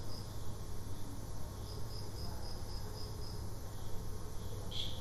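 High, rapid chirping like an insect's, in short runs of about four to five pulses a second, with one brief brighter chirp near the end, over a low steady hum.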